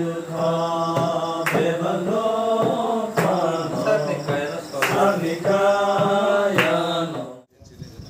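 A voice chanting in long, held, drawn-out notes, with a sharp click about every one and a half seconds; the chant cuts off suddenly about seven and a half seconds in.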